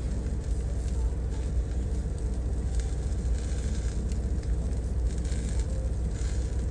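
Steady low rumble of an idling Volvo VNL semi truck heard inside the cab, with a faint sizzle and crackle from an egg frying in an electric skillet.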